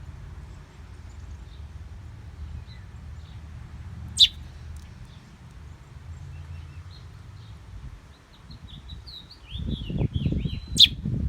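A small bird calling: one sharp high chirp about four seconds in, then a quick run of short chirps near the end that closes on another sharp chirp. Low rumbling comes in under the chirps near the end.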